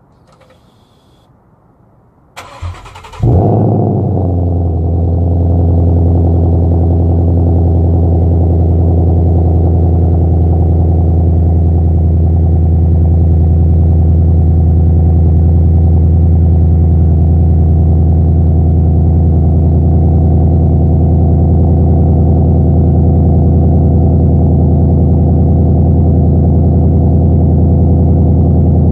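2017 Ford Mustang GT's 5.0-litre Coyote V8 with a Magnaflow exhaust, cold-started: a brief crank about two and a half seconds in, then the engine catches with a loud flare and settles into a steady cold idle.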